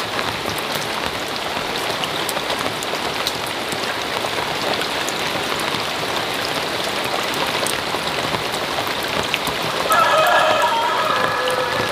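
Steady rain falling, a dense even patter with fine drop ticks. About ten seconds in, a short pitched call sounds over it for a couple of seconds.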